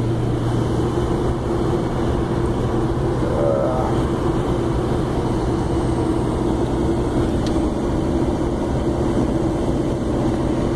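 Cab noise of a 2005 Chevrolet Silverado's 6.6-litre LLY Duramax V8 turbo-diesel cruising on the highway: a steady engine drone mixed with road noise.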